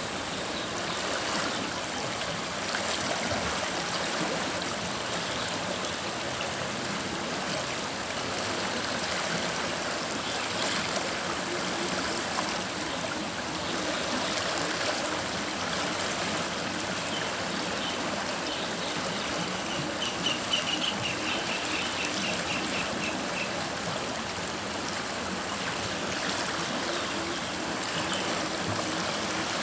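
River water flowing steadily over stones, a constant rushing and trickling. About two-thirds of the way through comes a short run of rapid high chirps.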